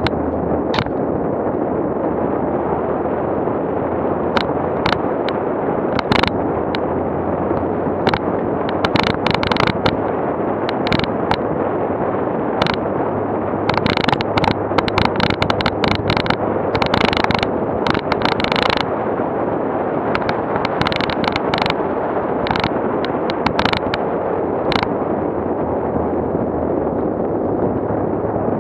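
Off-road vehicle driving on a bumpy dirt road: a steady rumble of engine, tyres and wind, broken by frequent sharp knocks and clatters, thickest around the middle.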